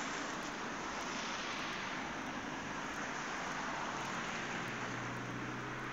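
Steady hiss of rain falling, mixed with traffic on a wet road, with a low hum joining about five seconds in.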